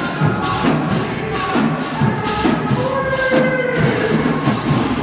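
HBCU marching band playing: brass lines over a steady marching-drum beat, with a long held brass note about three seconds in.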